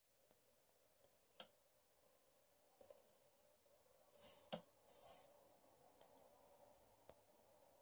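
Near silence broken by a few faint clicks of a Crayola Super Tips felt-tip marker against paper, and two short scratchy strokes of the marker colouring about four and five seconds in.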